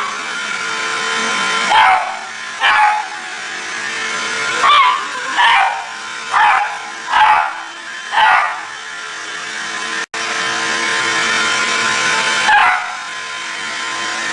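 Dog barking repeatedly, each bark falling in pitch, over the steady whining hum of a running vacuum cleaner. Seven barks come in a run in the first half, and one more comes near the end. The sound cuts out for an instant about ten seconds in.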